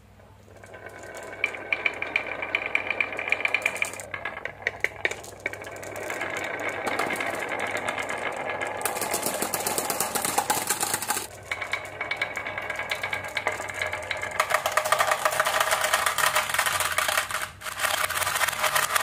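Glass marbles rolling and clattering in a stream down a wavy groove carved into a wooden board. They are released about a second in, and from then on there is a dense, continuous rattle of clicks with two brief lulls.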